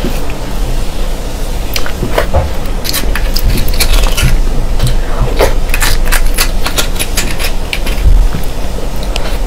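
Metal spoon clicking and scraping against spiny sea urchin shells as the roe is scooped out: many sharp, irregular clicks over a steady low hum.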